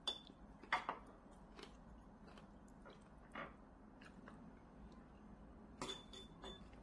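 A cat biting and chewing a lettuce leaf: a few short, crisp crunches at uneven intervals, the loudest within the first second.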